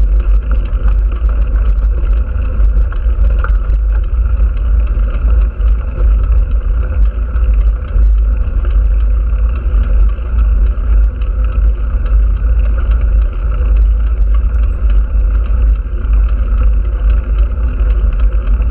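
Heavy wind rumble on the microphone of a camera riding at speed, with steady road noise underneath.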